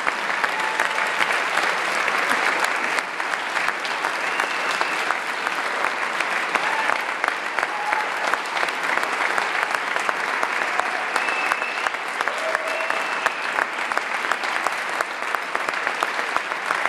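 Audience applauding: dense, steady clapping, with a few short cries from the crowd above it.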